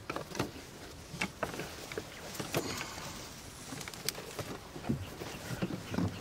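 A small boat being paddled: irregular splashes of paddle strokes in the water and sharp knocks of the paddle against the hull.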